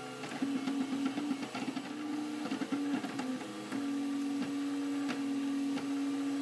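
Makerbot Replicator 3D printer's stepper motors singing as the print head moves: short notes that jump between pitches, then one steady held tone from a little past halfway.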